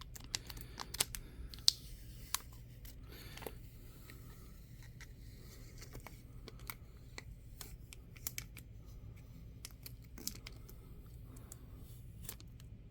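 Thin protective plastic film being picked and peeled off a video doorbell, tearing off in small pieces: faint crackles and scattered sharp clicks from fingernails on the film and housing.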